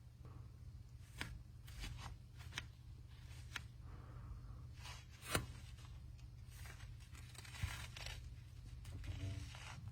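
Scattered clicks, taps and short rustles from handling a smartphone and its packaging, over a low steady hum. The sharpest click comes about five seconds in.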